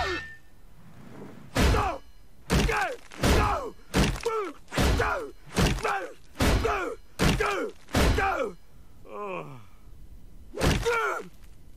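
Cartoon wrecking ball slamming again and again into a boulder and a wooden building, about ten heavy thuds roughly a second apart. Each thud is followed by a man's pained cry that falls in pitch.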